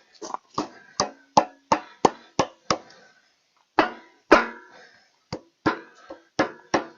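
Hammer tapping on metal, about sixteen quick ringing strikes at roughly three a second, with short pauses about three and five seconds in: driving the lubed end cap into the log splitter's hydraulic cylinder.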